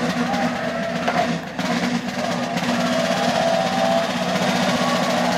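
Live military band music: snare drums rolling and rattling under held notes from the wind instruments.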